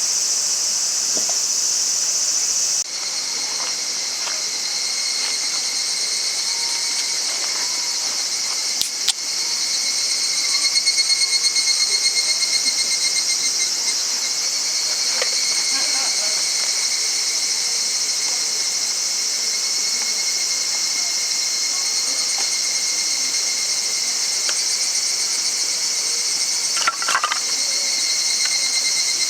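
Insects chirping in a steady, high-pitched chorus that pulses rapidly in places, with a couple of sharp clicks.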